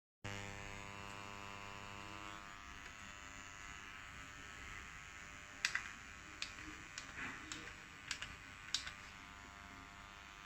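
Constant buzzing hum with many harmonics from B&O Beovox S30 speakers driven by a NAD C 315BEE amplifier: a fault noise that came on suddenly and persists regardless of volume. A string of sharp clicks comes in the middle.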